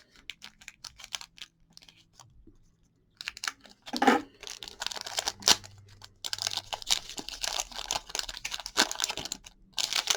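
A 2019 Donruss Optic trading card pack's wrapper being torn open and crinkled, with light clicks and rustles at first, a short lull about three seconds in, then busy crackling and tearing.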